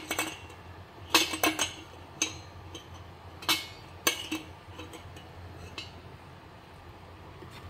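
A metal ladle clinking against the side of a stainless steel cooking pot as the kolak is stirred: a quick run of clinks about a second in, single clinks at about two, three and a half and four seconds, and a faint one near six.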